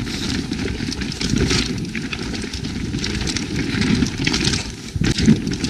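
Evil Calling full-suspension mountain bike descending a rough dirt trail: a steady rumble of tyres on dirt and rock, with many small clicks and rattles from the bike and wind buffeting the microphone.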